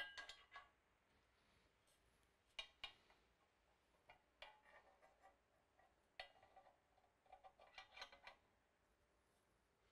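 Faint, scattered metallic clicks and clinks in a handful of short clusters a second or two apart, from the ground-stack video wall rigging hardware being handled and adjusted.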